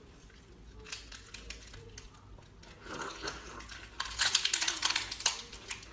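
Close-miked eating sounds as seafood is chewed: scattered small wet clicks, then a dense run of crackling mouth clicks about four seconds in.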